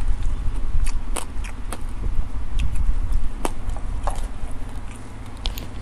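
Eating at a table: a few separate sharp clicks and light scrapes from a spoon, bowls and leafy greens being handled, over a steady low rumble.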